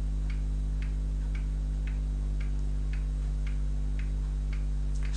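Clock ticking steadily, about two ticks a second, over a steady low electrical hum.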